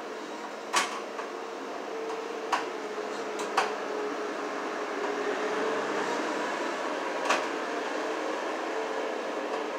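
Sharp clicks and taps, four of them, as wires and a switch are worked into a plastic electrical box by hand, over a steady background hum with a faint wavering tone.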